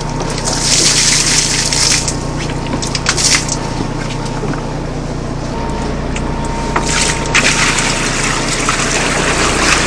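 Seawater pouring and splashing from a plastic bucket, twice: once about half a second in and again from about seven seconds in, where it is poured into a holding bucket. Under it runs the steady low hum of the boat's engine.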